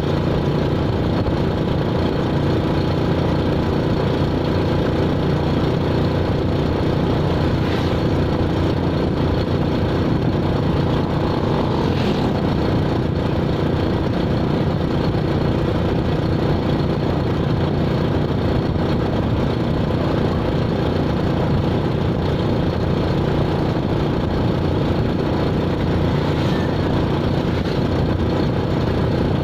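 A vehicle engine running steadily and evenly, with no changes in pace.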